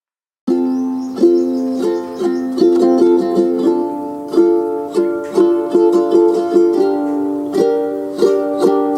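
Background music of plucked strings, strummed and picked in a light, steady rhythm, starting after about half a second of silence.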